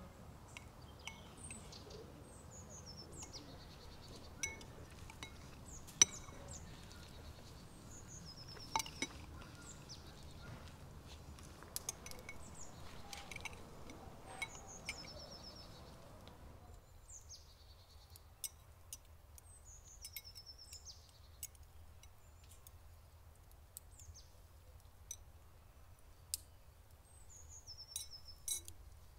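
Spoons clinking and scraping against ceramic bowls and plates as people eat, with sharp clicks scattered throughout, the loudest about six seconds in. Small birds chirp repeatedly throughout, and about seventeen seconds in the low background hum drops away, leaving the chirps and occasional clicks.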